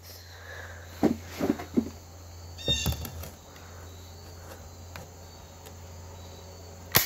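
A few soft clicks and knocks, then a single sharp shot from a BB gun near the end.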